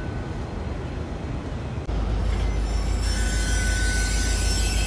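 VIA Rail passenger train rolling past with its wheels squealing, a thin steady tone that drops away at first and returns about three seconds in. A deep rumble comes in suddenly about two seconds in and stays.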